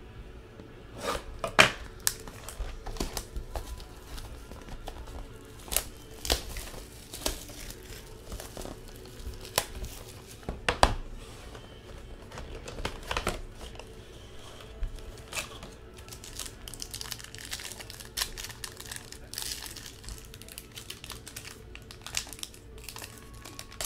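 Shrink wrap and a foil pack of 2014 Bowman Sterling football cards being cut, torn and crinkled open by hand: irregular crackling and ripping with sharp clicks from handling the box.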